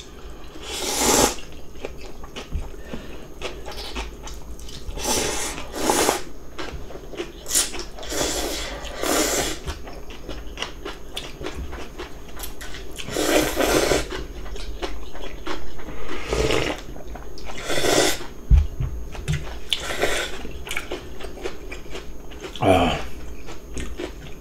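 Eating sounds: about a dozen irregular slurps of cold radish water-kimchi noodles in broth, each lasting about half a second to a second, with quieter chewing between them.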